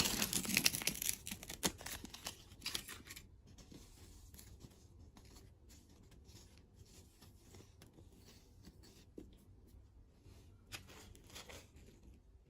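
A crinkly wrapper being torn open and crumpled, densest in the first three seconds, then faint scattered crackles and a short rustle near the end.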